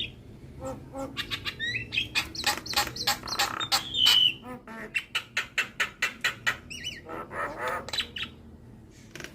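Javan myna singing: a rapid run of clicks and harsh chattering notes, with a loud, clear whistle about four seconds in and a burst of fast scratchy chatter near the end.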